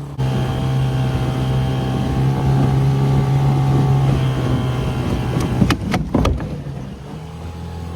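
An 8 hp two-stroke outboard motor runs steadily under throttle, pushing a small dinghy. Between about five and a half and six seconds in come a few sharp cracks as the dinghy's bench seat breaks, and then the engine eases off.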